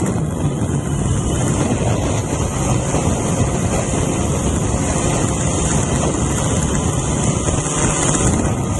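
Drone's motors and propellers running steadily in flight, heard close up from the camera on the drone as an even high hiss over a low rumble, with wind rushing on the microphone.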